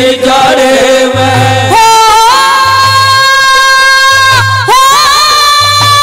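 Live Haryanvi ragni music: singers holding long notes over a steady low beat, with the melody jumping to a higher held note about two seconds in.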